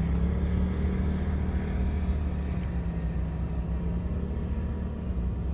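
A steady low engine hum that does not change in pitch.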